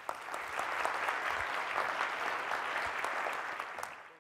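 Audience applauding with many hands clapping at a steady level, cut off abruptly at the end.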